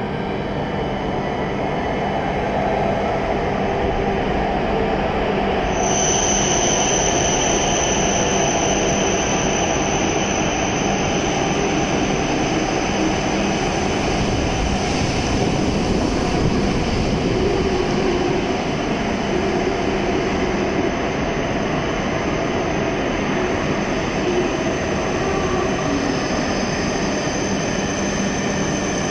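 E7 series Shinkansen train pulling into the platform and slowing: a steady rumble of wheels and running gear, with a high steady whine that comes in about six seconds in.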